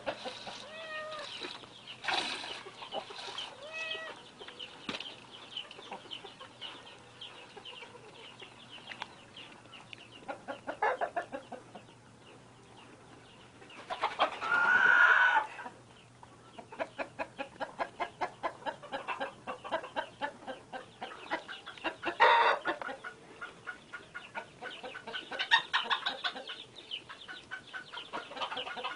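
Chickens clucking, with a longer, louder call about halfway through, a sharp knock a little later, and a run of quick, even ticks in the second half.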